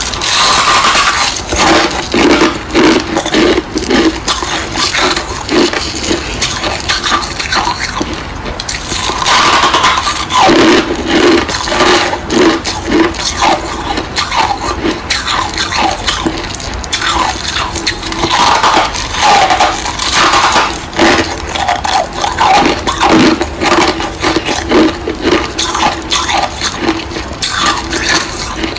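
Thick freezer frost being crunched: a long, dense run of crisp crackling crunches, one close on another.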